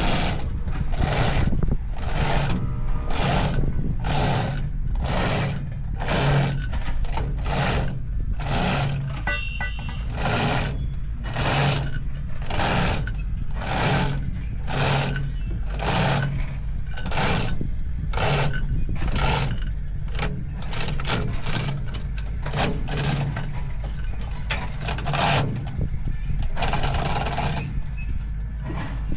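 Steady, regular hammering, about one and a half strikes a second, over a low steady rumble, typical of work on a bulldozer repair.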